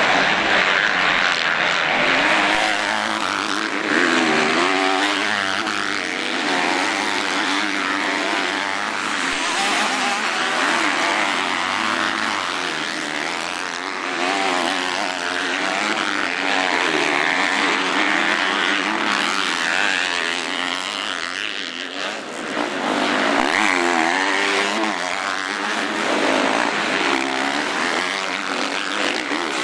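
Several MX2 motocross bikes racing on a dirt track, their engines revving up and down over and over as riders accelerate and back off past the camera.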